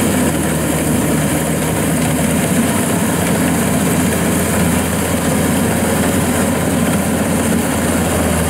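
Kubota DC115plus rice combine harvester running steadily under load as it cuts and threshes flattened rice, its engine giving a constant, even hum.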